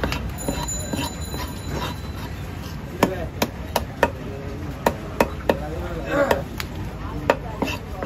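Large knife chopping fish on a wooden chopping block: irregular sharp knocks of the blade striking the wood, coming in a quick run in the middle and once more near the end. Faint voices in the background.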